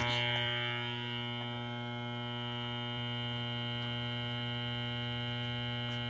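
Steady electrical hum with many evenly spaced overtones, holding the same pitch throughout.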